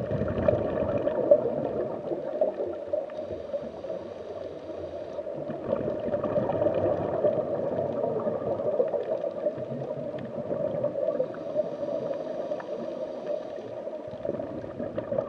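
Underwater ambience sound effect: a steady noise of moving water.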